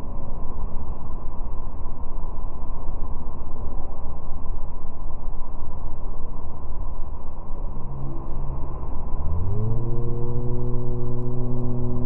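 Motorboat under way: a steady rush of wind and bow spray over the engine. About nine seconds in, the low engine drone climbs in pitch and then holds steady.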